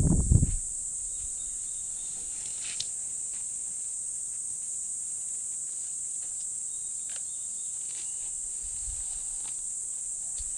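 Steady high-pitched insect chorus, with a few faint chirps over it. In the first half-second a loud low rustling noise stops abruptly.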